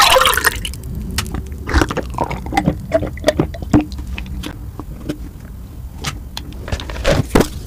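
Close-miked ASMR drinking and eating sounds: gulps from a glass of juice, then wet mouth clicks and smacks, with a spoon working in an ice cream tub near the end, over a steady low hum.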